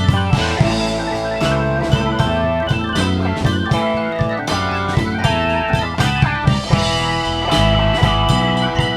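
Instrumental rock music with electric guitar and a drum kit keeping a steady beat.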